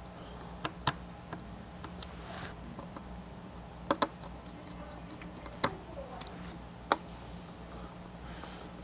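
Panasonic Toughbook CF-30's plastic keyboard bezel being pressed down and snapped into place by hand. It gives about eight sharp plastic clicks at irregular intervals; the loudest are a quick pair about four seconds in and single clicks at about five and a half and seven seconds.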